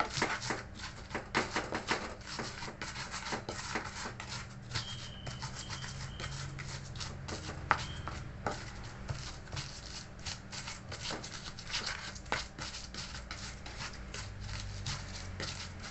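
Pestle grinding a spice paste of chilli, candlenut, garlic, shallot and turmeric in an Indonesian cobek (mortar and pestle): a rapid, irregular run of scraping and knocking strokes, several a second, with one sharper knock about eight seconds in.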